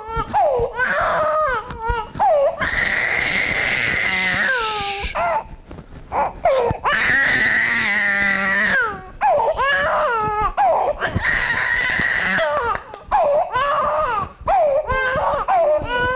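Infant under a year old crying while held upright for contact-breathing chest physiotherapy: three long, held wails with short sobs and whimpers between them.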